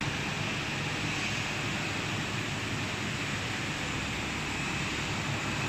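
Steady background noise of a machine-tool factory hall: an even hiss with a low hum underneath, and no distinct knocks or cutting sounds.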